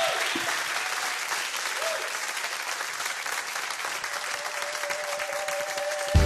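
Studio audience and jury applauding steadily. A faint held tone joins in under the clapping about four seconds in.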